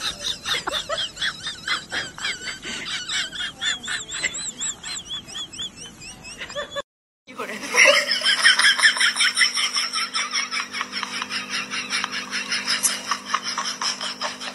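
Rapid, high-pitched laughter, cutting off briefly about seven seconds in and starting again louder.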